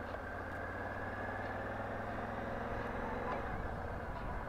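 Honda Africa Twin motorcycle engine running steadily, with an even pulsing note.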